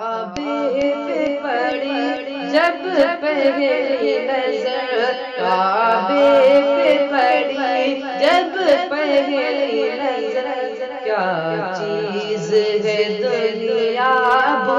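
A boy's voice singing the opening of an Urdu devotional naat in long, ornamented phrases that glide and waver in pitch, over a steady low drone that drops to a lower note about eleven seconds in.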